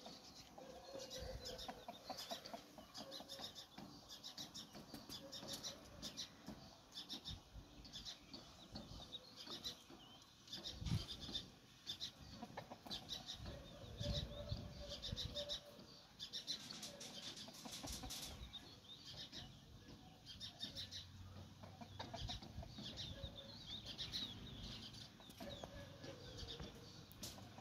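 Domestic hens clucking softly every few seconds, over a steady patter of high chirps.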